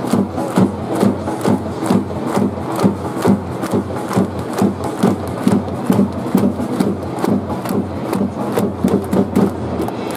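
Football supporters' chant: a steady, loud beat about two and a half times a second, with massed voices under it.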